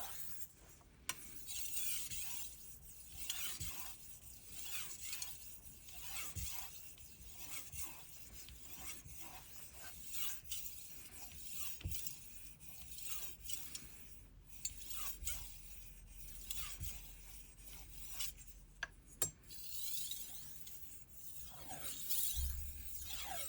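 Knife blade scraped back and forth across a whetstone in a steady run of hissing strokes, with one sharp click late on.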